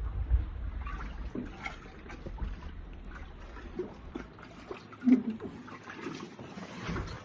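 Floodwater splashing and trickling in small, scattered splashes, with low wind rumble on the microphone over the first second or so.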